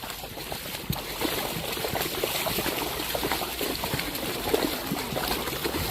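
Floodwater trickling and gurgling: a steady wash of water with many small, irregular splashy blips.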